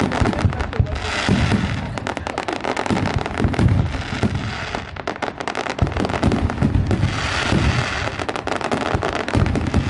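Fireworks display: a continuous barrage of booming shell bursts and rapid crackling.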